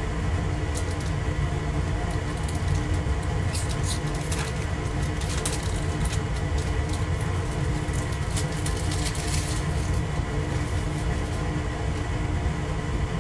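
Steady low rumble and hum of a hot water heater running, with brief crinkles and clicks from about three to ten seconds in.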